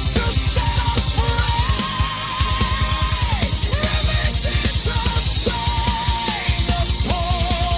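Heavy metal instrumental passage: fast, even double-kick drumming under a lead melody that holds long notes with vibrato and slides down at the end of each phrase.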